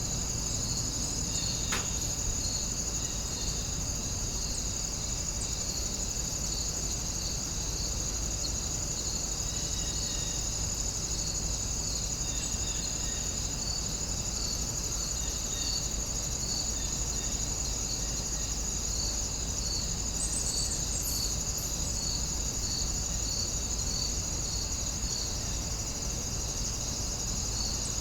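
Crickets chirring in a steady high trill, with a second insect call pulsing regularly about once or twice a second, over an even background hiss and low rumble.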